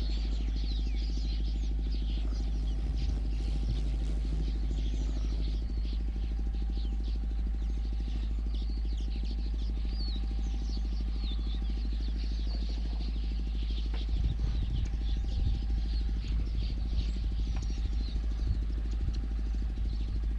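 Steady hum of an idling vehicle engine, with many short high chirps over it. About two-thirds of the way through, uneven low rumbling joins in.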